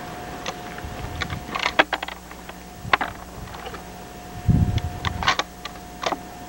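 Sharp metallic clicks and clacks of an Armalite AR-30 .300 Win Mag bolt-action rifle being handled after a shot, the bolt being worked to clear the spent case and chamber the next round. A dull thump comes about four and a half seconds in.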